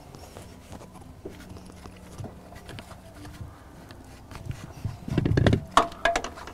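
Filter wrench being fitted around a metal-canister diesel fuel filter: faint scraping and handling, then a short burst of metal knocks and clatter about five seconds in.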